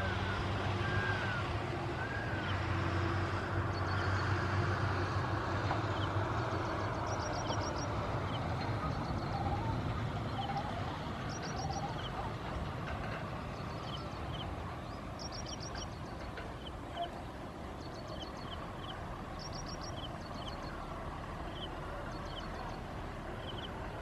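Small birds chirping: short high notes repeated every second or so, with quick bursts of rapid high notes every few seconds. Under them a vehicle's low engine drone is loudest for the first several seconds and then fades away.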